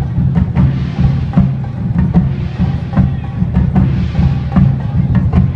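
Bon odori festival music with a steady drum beat and a sharp wooden clack about every half second over a sustained low melody.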